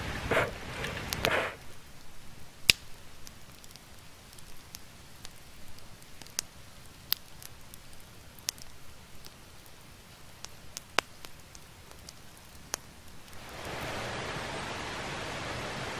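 Campfire embers crackling: sharp, scattered pops, about a dozen over ten seconds, the loudest a few seconds in. Brief rustling handling sounds come at the start, and near the end a steady rushing hiss takes over.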